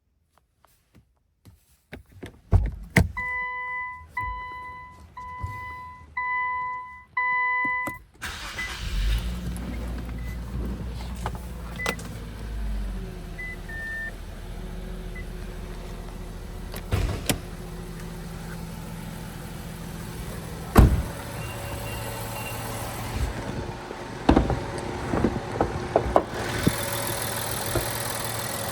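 A car's chime beeps five times, then the 2021 Infiniti Q50's 3.0L twin-turbo V6 starts about eight seconds in, flares loudly for a few seconds and settles to a steady idle. A few sharp clicks sound over the idle.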